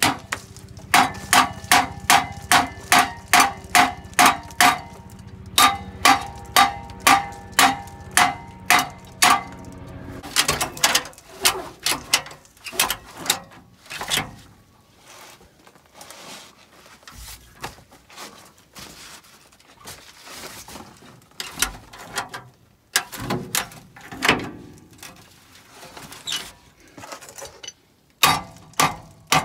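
Hand hammer blows on the truck's steel exhaust pipe and muffler, struck in fast runs of about three a second, each hit ringing. The blows thin out and grow fainter around the middle, then come hard and fast again near the end: knocking the old exhaust loose to take it off.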